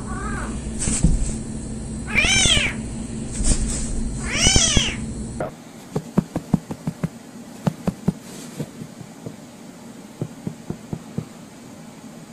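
A cat meowing three times, each call rising then falling in pitch, the last two loud. Then comes a scattered run of light clicks and taps.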